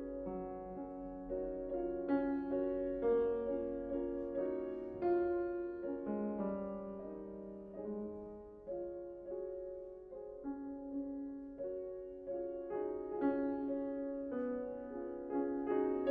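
Solo piano playing a slow classical passage: chords and single notes struck about once or twice a second, each left to ring and fade.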